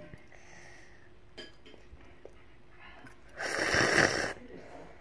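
A person slurping ramen noodles in one loud burst of just under a second, about three and a half seconds in, after a few faint clicks.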